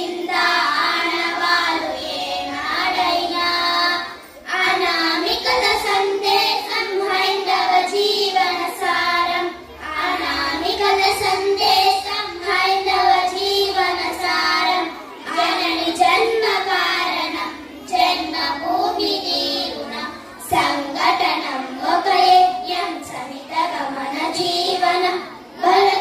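A group of young girls singing a song together through microphones, phrase after phrase with short breaks for breath.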